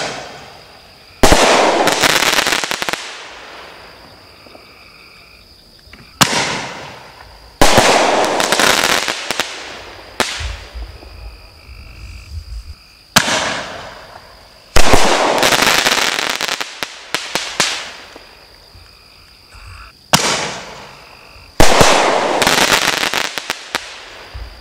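Consumer double-break artillery shells fired one at a time from a mortar tube, about seven seconds apart. A loud air burst with a crackling tail comes right at the start. Then three times over, a sharp launch thump is followed about a second and a half later by a loud burst that crackles and fades over a couple of seconds.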